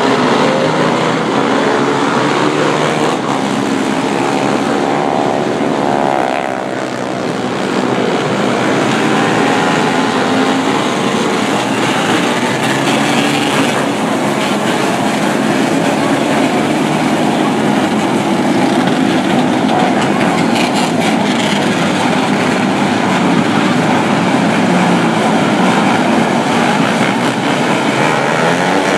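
A field of 125cc winged micro sprint cars running on a dirt oval, many engine notes overlapping and sliding up and down in pitch as the cars pass, with a brief dip about six seconds in.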